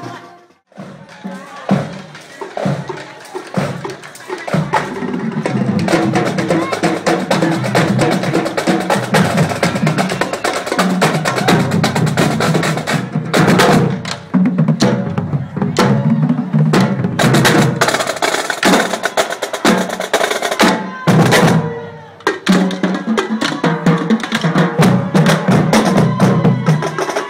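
Marching band drumline playing a street cadence: snare drums with rolls and sharp stick clicks over bass drums, in a fast steady beat. The drumming drops out briefly just after the start and again about twenty-one seconds in.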